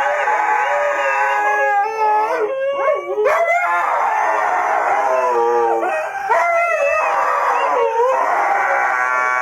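A dog howling in long, wavering cries that slide up and down in pitch, with a few short breaks.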